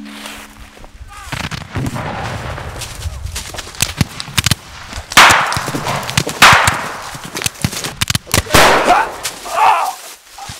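Black-powder rifle-musket gunfire: scattered sharp shots, then two loud volleys a little over a second apart near the middle and another a couple of seconds later, each trailing off in a long echo.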